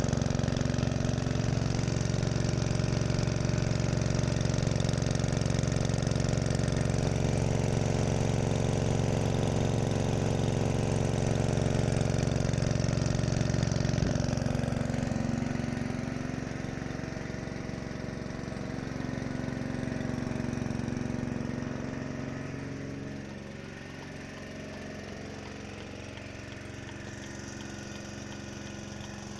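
Kisankraft petrol engine running steadily, driving the vacuum pump of a single-bucket milking machine. There is one sharp knock about halfway through, after which the engine sound drops to a lower level.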